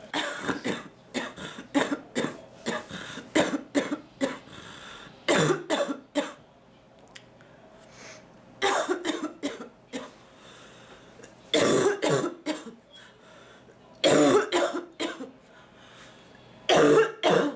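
A woman's coughing fit: a rapid run of coughs at the start, then short bouts of coughs every two to three seconds, with some throat clearing. It is an annoying, ticklish cough that brings nothing up, the congestion sitting and not moving.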